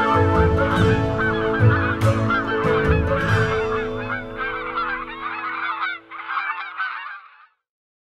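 A flock of birds calling, many short overlapping calls at once, over soft background music that fades away. The calls cut off suddenly near the end.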